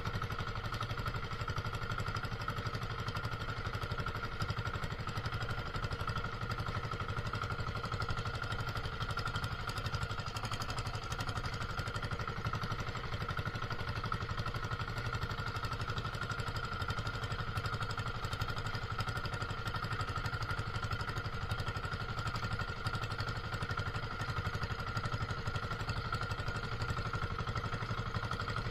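Small engine of a motorized outrigger boat (bangka) running steadily as the boat cruises, an unchanging drone.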